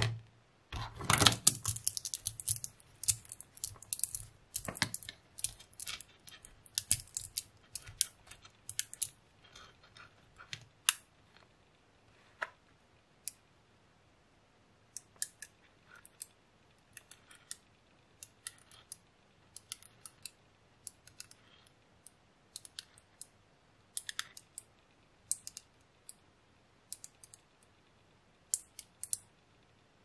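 Small metal magnetic balls clicking and snapping together as they are pulled apart and rejoined by hand. A dense run of rattling clicks thins out about ten seconds in to scattered single clicks.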